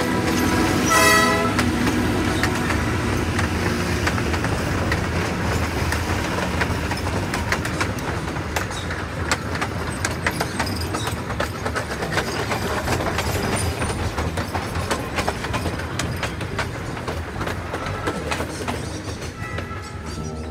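PeruRail passenger train carriages passing close by, the wheels rumbling steadily and clicking over the rail joints. The train horn sounds briefly just at the start.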